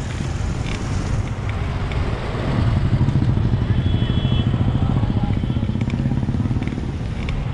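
Wind rushing over the microphone of a moving bicycle, with a motorcycle engine passing close by: its rapid pulsing comes in about a third of the way in, is loudest soon after and eases toward the end.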